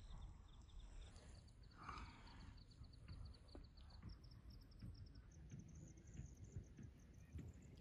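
Near silence: a faint low rumble with a few soft clicks.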